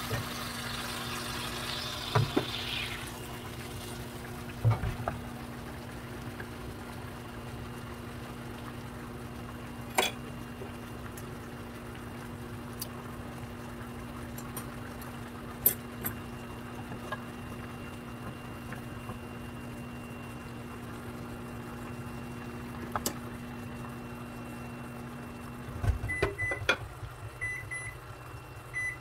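Blue marlin steaks in teriyaki sauce sizzling in a frying pan, the sizzle fading away over the first few seconds, over a steady kitchen-appliance hum. A few single knocks sound through it. About 26 seconds in the hum cuts off and short electronic beeps follow.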